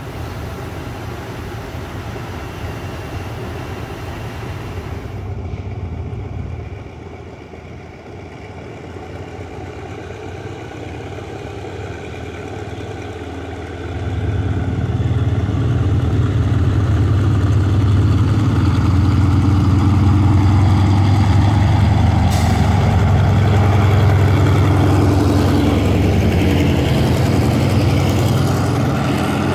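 Diesel-electric locomotive No. 4545 running with a steady low engine drone; about halfway through it becomes much louder as the locomotive works its train away and passes close by, with one brief sharp click a little later.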